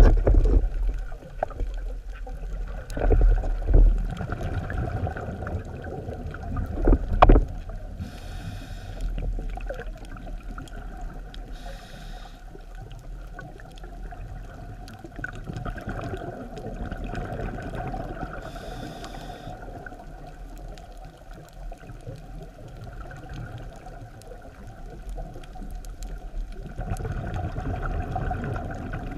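Muffled underwater sound of a scuba diver's regulator breathing. There are several low, rumbling bursts of exhaled bubbles, loudest in the first few seconds and again near the end, and a few brief hissing breaths taken through the regulator.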